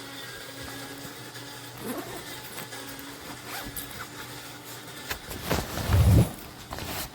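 Handling of a laptop backpack: zipper and fabric rustling over a steady low hum, with a heavy thump about six seconds in.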